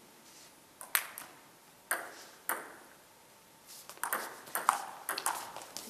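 Table tennis ball clicking off bats and the table: a few single clicks about a second apart, then a quick run of clicks in a rally from about three and a half seconds in.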